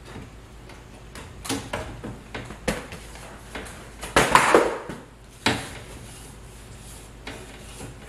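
Ceiling return-air vent grille and its air filter being handled as the filter is fitted: several clicks and knocks, with a louder scraping rattle about four seconds in.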